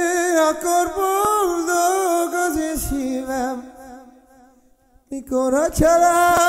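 A voice singing a song with wavering, ornamented melody lines, fading out about four seconds in and starting again about a second later.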